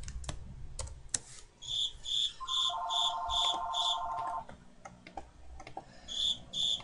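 A telephone ringing in the background: an electronic ringer trilling in quick chirps about two and a half a second, with a steady two-note tone under it for about two seconds. The ringing pauses and starts again near the end. A few computer keyboard keystrokes come in the first second.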